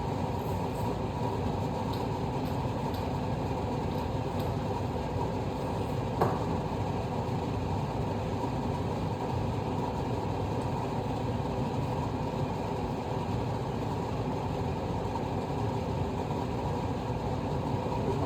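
Kitchen exhaust fan running with a steady whir, with a single sharp knock about six seconds in.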